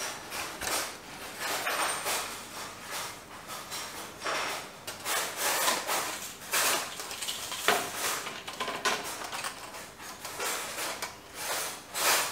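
A 3D-printed light bulb changer on a long pole being handled and raised to a ceiling socket with a bulb in its jaws: a run of irregular rubs, scrapes and light knocks of plastic and pole.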